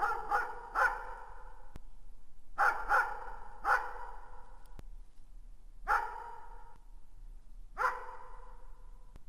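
A dog barking in the distance: a quick run of three barks, a pause, another three, then two single barks, each bark trailing off in an echo.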